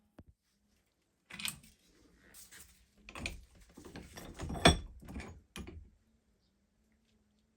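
Handling of the cleaned iron axe head: a run of irregular knocks and light metallic clinks, the loudest about four and a half seconds in, stopping about six seconds in.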